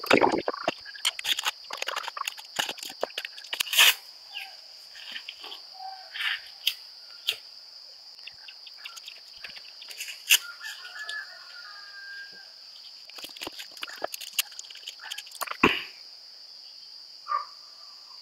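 Steady high chirring of insects, with scattered clicks and knocks of food and cookware being handled at a frying pan, and a thump near the end.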